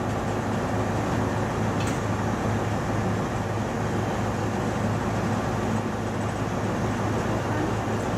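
Freight train hauled by an Sr1 electric locomotive passing at speed: a steady rumble with a constant low hum.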